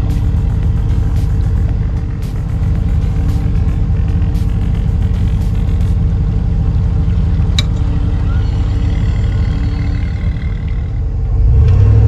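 A vehicle engine idling steadily, a low hum that does not change, with a few light clicks in the first seconds and a short high chirp past the middle. Near the end it gives way to a louder, deeper rumble with a rushing hiss.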